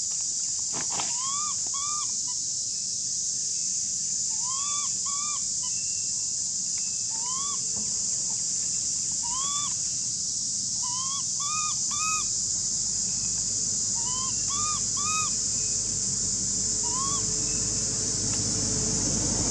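A steady high-pitched insect drone, with short rising-and-falling animal calls repeated in pairs and threes every second or two over it.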